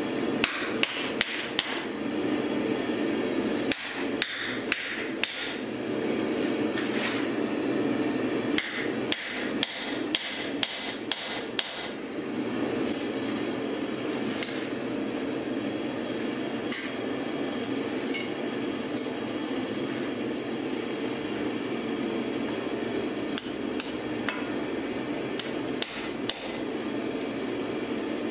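Blacksmith's hand hammer striking a chisel into a glowing steel bar on the anvil: three bursts of ringing blows, about two or three a second, over the first twelve seconds. Then the hammering stops, leaving a steady low rushing noise with a few light clinks.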